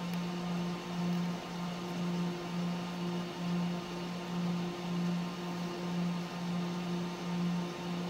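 A steady low hum that swells and fades in an even slow pulse about every two-thirds of a second, with a fainter higher tone coming and going above it.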